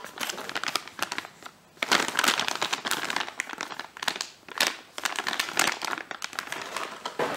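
Clear plastic parts bag of sprockets and chain crinkling as it is handled and turned over, in quick irregular rustles with a brief lull about a second and a half in.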